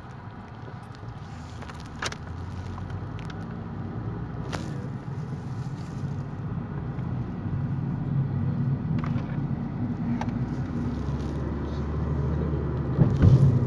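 Car engine and road noise heard from inside the cabin, growing steadily louder as the car pulls away and picks up speed. A few faint clicks, and a short loud knock near the end.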